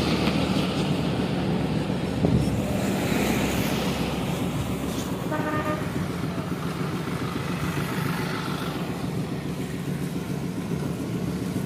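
Road traffic passing on a main road, cars and buses giving a steady engine rumble, with a vehicle horn sounding briefly about five seconds in.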